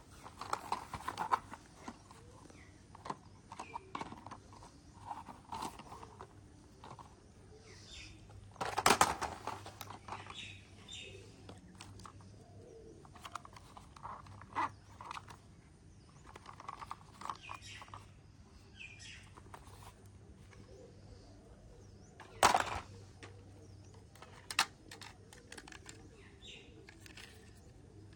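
Plastic toy vehicles being handled, shifted and knocked against each other in a pile, giving scattered light clicks and clatter, with two sharp clacks, about nine seconds in and again after about twenty-two seconds.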